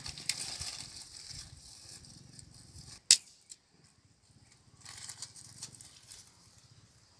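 Dry sticks and twigs rustling and snapping as they are handled and broken for a fire, with one sharp loud crack about three seconds in.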